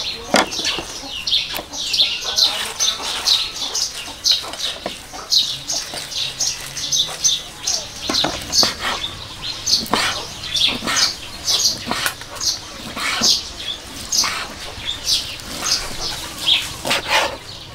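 Crisp rustling and crackling of lettuce and fresh herbs being handled and laid on a plate, then a knife slicing through braised pig's head on a cutting board, heard as a quick run of short crackly sounds with a few sharper cuts.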